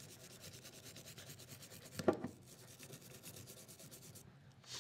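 A brush scrubbing solvent around the forcing cone of a Taurus 856 revolver, in quick, even back-and-forth strokes. There is a brief louder knock about two seconds in. The scrubbing stops shortly before the end.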